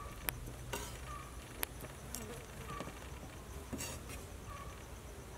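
Quiet outdoor ambience with short chirps from insects repeating every second or so over a low hum. Several sharp clicks cut through it, the loudest about a third of a second in and again near the middle.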